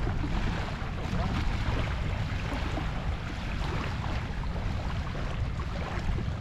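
Wind buffeting the microphone in a steady low rumble, over a hiss of outdoor noise dotted with many small ticks.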